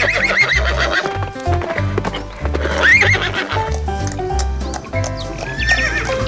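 Horse whinnying three times, at the start, about three seconds in and near the end, over background music with a steady bass line.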